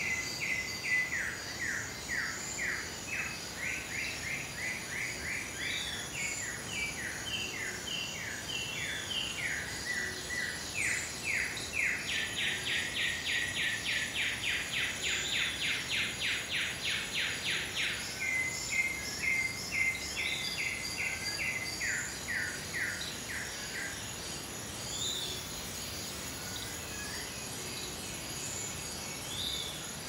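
Tropical forest birds singing in series of quick repeated notes, with a faster, denser run of notes lasting several seconds around the middle. Insects keep up a steady high-pitched drone throughout.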